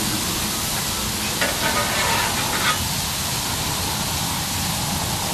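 Whiting and salmon sizzling on a hot propane flat-top griddle, a steady hiss, with the low rumble of highway traffic underneath.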